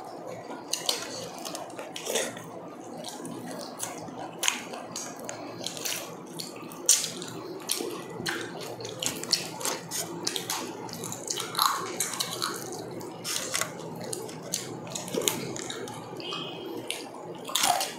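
Close-miked eating sounds of two people chewing roast meat with their hands: wet chewing and lip smacks with many irregular mouth clicks.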